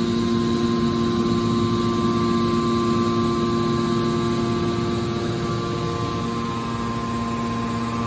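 Steady hum of the hydraulic pump motor of a scrap-car press running, with several fixed tones. Its lowest tone weakens a little in the second half.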